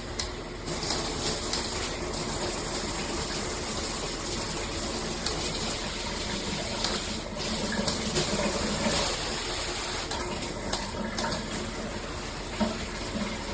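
Water spraying steadily from a handheld shower head.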